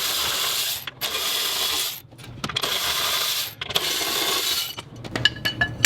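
Ratchet wrench clicking in four runs of about a second each while backing out 13 mm bolts from a cross brace under a car, followed by a few metallic clinks near the end.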